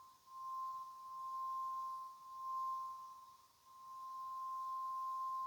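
NOAA Weather Radio warning alarm tone: a single steady high tone of about 1050 Hz, its level dipping and swelling back a few times. It is the alert tone that heralds an emergency broadcast, here a severe thunderstorm warning.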